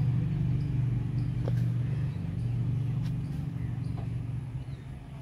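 A steady low mechanical hum with a few faint ticks over it, easing off slightly near the end.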